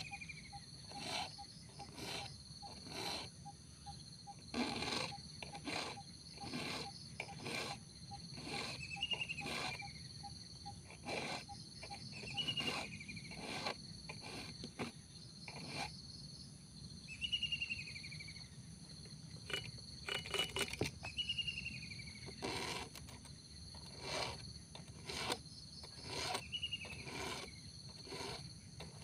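A round file rasping across the cutters of a chainsaw chain in short strokes, roughly one or two a second, as the chain is sharpened by hand. Insects buzz steadily behind it, and an animal gives a short falling call every few seconds.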